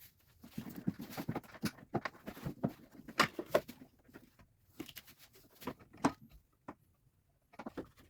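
Scattered light clicks, knocks and rustling of hands working a clutch slave cylinder and its hose loose among metal parts under a pickup.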